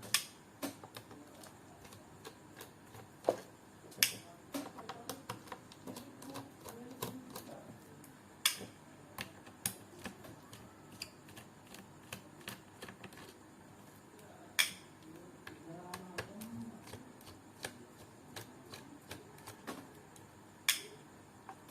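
Irregular light clicks and ticks from a small screwdriver undoing the bottom-case screws of an Asus VivoBook 14 laptop, with a handful of sharper, louder clicks spread through.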